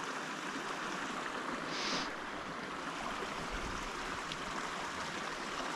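A steady rushing noise, with a brief brighter hiss about two seconds in.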